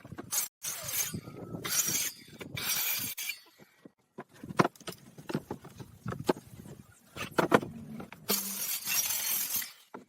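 Hands-on work with pallet wood: sharp knocks and clatter of wood and tools, with three scraping strokes about a second each.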